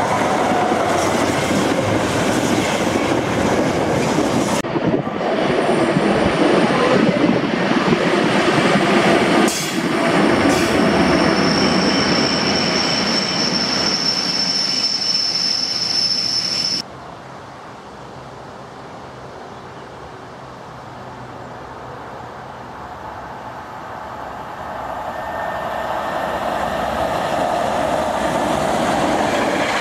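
Class 90 electric locomotives hauling container freight trains pass close by in several short takes, with the rumble and rail noise of the wagons going by. In the middle take a steady high-pitched wheel squeal runs for several seconds and stops suddenly. After it the sound is quieter, then builds as another train approaches near the end.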